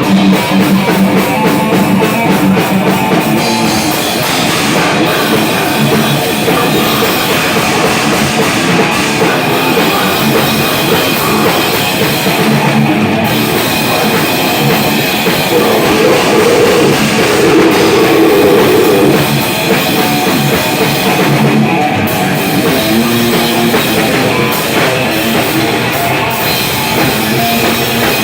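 Live rock band playing loudly, with a drum kit and electric guitars going without a break.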